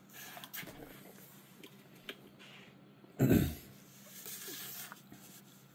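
Small plastic action-figure parts being handled, with faint scattered clicks and rustling. A brief louder noise comes about three seconds in.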